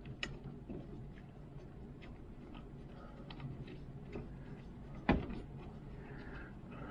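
Faint, scattered clicks of doorknob hardware being handled as its mounting bolts are threaded in by hand, with one sharper knock about five seconds in.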